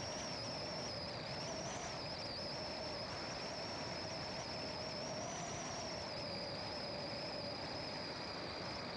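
Car driving along a winding road: a steady rush of road and engine noise with a high, slightly wavering whine over it.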